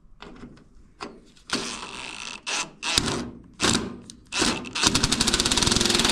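Cordless power driver running in several short bursts, then a longer run with a fast rattle, driving a screw home.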